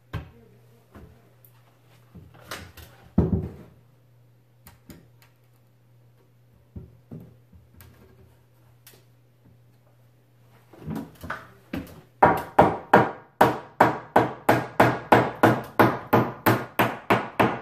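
A wooden 2x4 stud is set into a wall frame with a few thuds and knocks. Then comes a fast, even run of hammer blows on the wood, about three a second, driving the tight-fitting stud into place.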